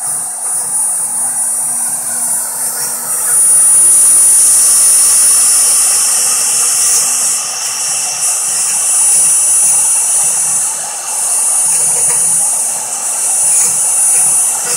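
CNC router spindle running at high speed with a steady high whine, its small end mill cutting into plywood with a hissing rasp. It gets louder about three and a half seconds in.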